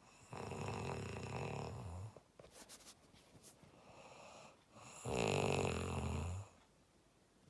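A person snoring: two loud, rattling snores about five seconds apart, each lasting around one and a half seconds, with a quieter breath between them.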